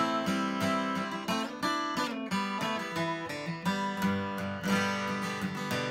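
Steel-string acoustic guitar strummed in a steady rhythm: the instrumental introduction of a folk song, before the vocals come in.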